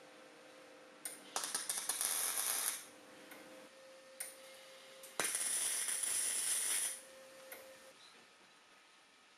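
Electric arc welder tack-welding a joint in square steel tubing: two crackling hisses of about a second and a half each, the first about a second in and the second about five seconds in, with short clicks around them.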